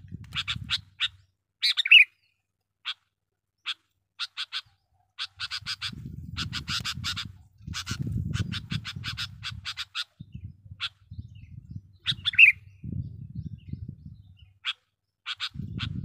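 Sooty-headed bulbul (kutilang) calling in quick runs of short, sharp chattering notes, with a louder slurred call about two seconds in and again about twelve seconds in. A low rumble sits underneath in stretches through the middle.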